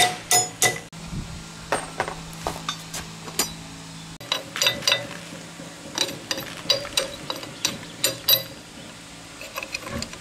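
Irregular metallic clicks, clinks and light knocks of hand tools working on metal machine parts, some with a short ring, over a steady low hum.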